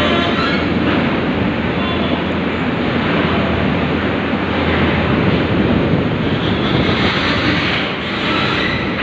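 Steady, loud engine rumble and noise as a coach bus drives slowly up the steel loading ramp into a ferry's car deck.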